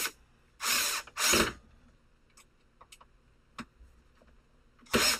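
Cordless drill-driver driving a screw through a metal bracket into wood in short bursts: three near the start and another near the end, with a few light clicks between.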